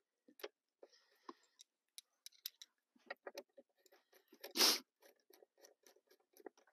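Light clicks and taps of hand tools and metal parts while an ignition coil is being bolted onto a snowmobile, with one short, louder clatter a little past halfway.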